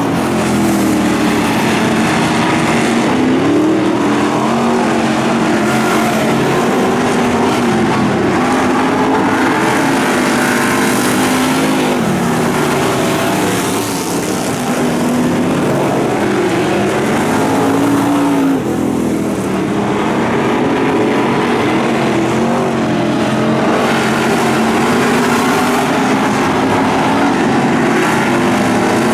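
Dirt-track race car engines running at speed during a practice race, their pitch rising and falling over and over as the cars accelerate and lift around the track.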